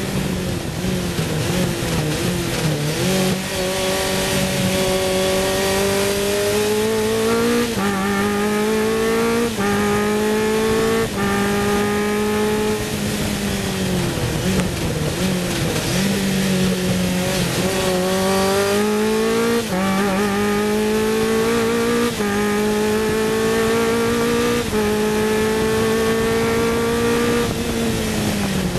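Sports 2000 racing car's four-cylinder engine heard from the cockpit at full throttle, its note climbing through the gears with sharp drops at three quick upshifts, then falling as the car brakes for a corner. It climbs again through three more upshifts and falls once more near the end, over a steady rush of wind.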